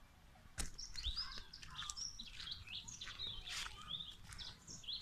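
A sharp click about half a second in, then several small birds chirping in short, quick, overlapping notes that rise and fall in pitch.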